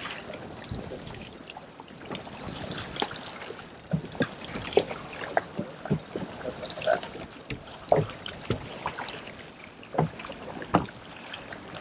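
Choppy lake water lapping and slapping against the hull of a fishing boat, a steady wash of water noise broken by many short, irregular knocks and splashes.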